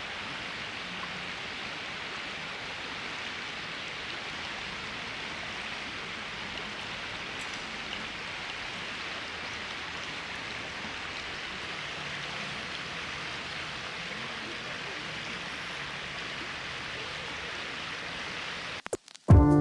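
Steady rushing of flowing river water. It cuts off abruptly near the end, and music begins.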